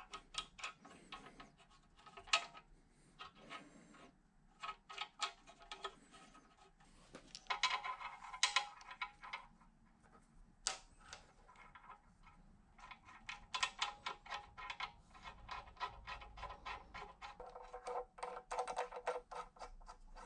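Steel clamping hardware (toe clamps, studs, nuts and riser blocks) clinking and clicking as it is handled and fitted into the T-slots of a milling machine table. Scattered sharp metal clicks, with a few spells of quick clicking about a third of the way in and again past the middle.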